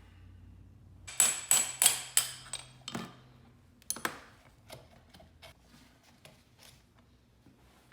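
The armature (rotor) of a Rockwell Porta-Band 725 portable bandsaw being tapped out of its housing: a quick run of about six sharp, ringing metal taps, then one more strong tap and a few lighter knocks as it comes loose.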